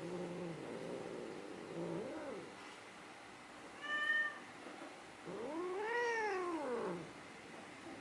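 Domestic cat meowing several times while being groomed: a low, drawn-out moan at the start, a short higher meow about four seconds in, then a long yowl that rises and falls in pitch.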